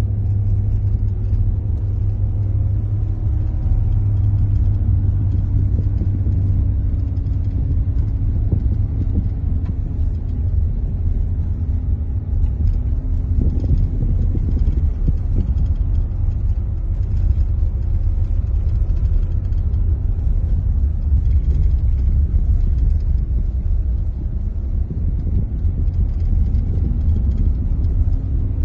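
Steady low rumble of a moving car heard inside the cabin: engine and tyres on an unpaved gravel road, with a faint engine tone that drifts slightly up and down.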